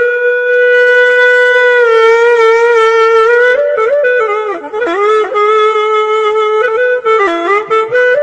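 Music: a solo woodwind plays a slow melody. It opens on one long held note, then moves through quick ornamented turns and slides.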